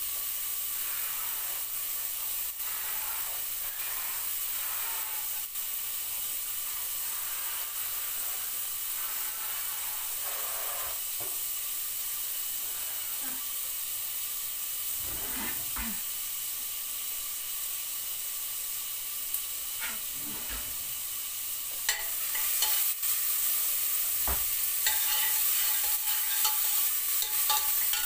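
Grated carrot frying in oil in a stainless steel pot, a steady sizzle. About three-quarters of the way through, stirring begins in the pot, with quick clicks against the metal, and the sound grows louder.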